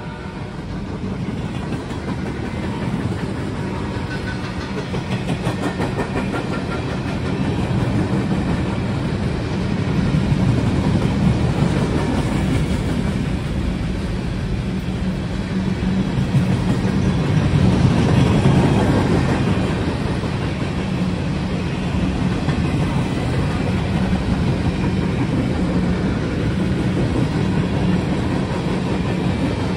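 Train passing: diesel locomotive engine and wheels rolling on the rails in a steady rumble that grows louder to about eighteen seconds in. A horn blast trails off right at the start.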